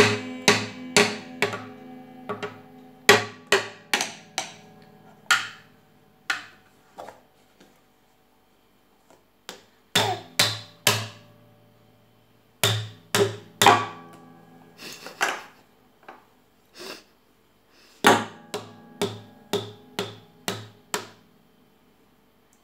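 Guitar being struck with a small hammer. Irregular knocks set the strings ringing, in several runs of quick strikes with short pauses between them.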